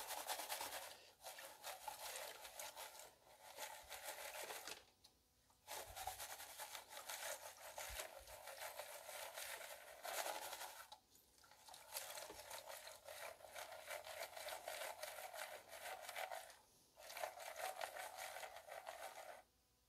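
Paydirt gravel and water swishing and grating in a plastic gold pan as it is shaken and swirled in a tub of water. The sound comes in stretches of a few seconds, with short pauses about one, five, eleven and seventeen seconds in.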